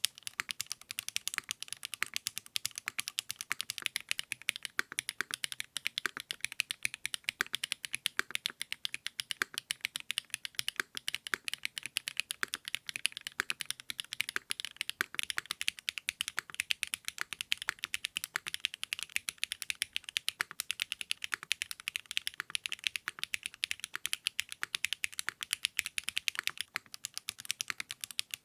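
Continuous fast typing on a custom mechanical keyboard with 80Retros x HMX KD400 switches: a dense, steady stream of crisp keystroke clicks, several per second.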